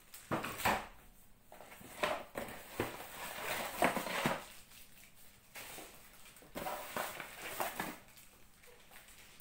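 A cardboard box and its packaging being handled: scraping and rustling in irregular bursts, with a few sharp knocks.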